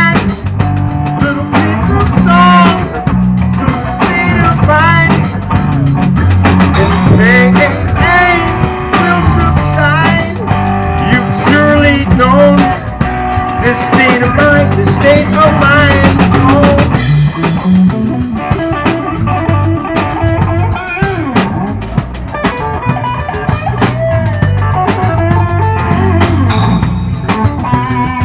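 Live funk-rock band playing an instrumental break: an electric guitar lead with bending, sliding notes over a drum kit and a low bass line.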